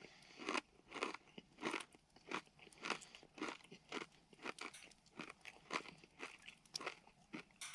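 Someone chewing crisp bacon close to the microphone: a steady run of crunches, about one every half to two-thirds of a second.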